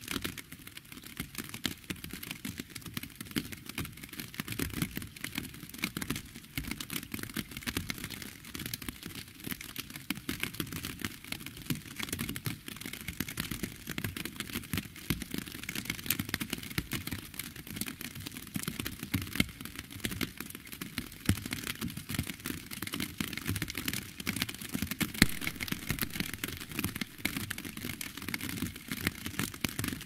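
Steady rain falling: a dense stream of small drop taps with louder single drops hitting now and then.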